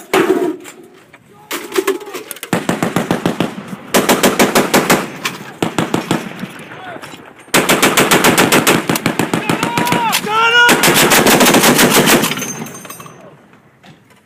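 M2 .50 caliber heavy machine guns firing sustained bursts of several rounds a second, loud bursts trading with quieter ones in the 'talking gun' pattern of alternating fire.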